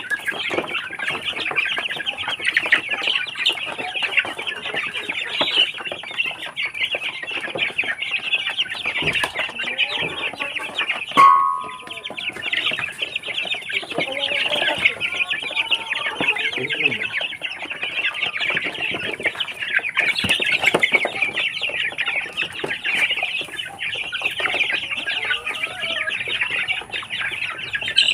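A flock of young Barred Plymouth Rock chickens chirping and clucking non-stop as they feed from troughs, with one brief, louder call about eleven seconds in.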